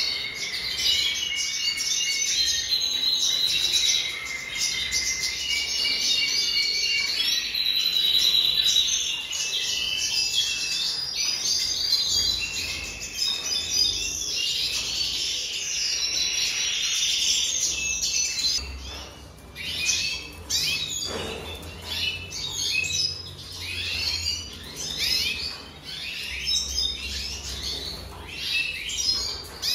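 Red siskin singing: a fast, continuous twittering song with held, whistled notes for most of the first twenty seconds, then a run of short, separate chirps.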